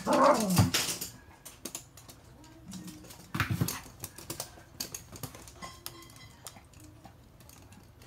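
Toy poodles' claws clicking and tapping on a hard floor as they move about, in a series of light irregular ticks. A short loud voice-like call falling in pitch opens it, and another loud burst comes about three and a half seconds in.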